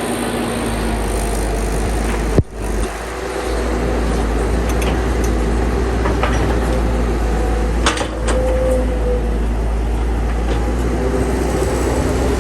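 Excavator engine running steadily under load, with a brief break about two and a half seconds in and a few sharp knocks around eight seconds.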